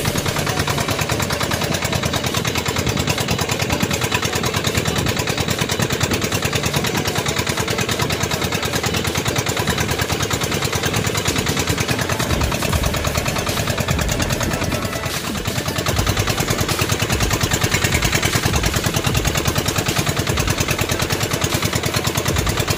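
Boat engine running steadily with a fast, even pulse, dipping briefly in level about fifteen seconds in.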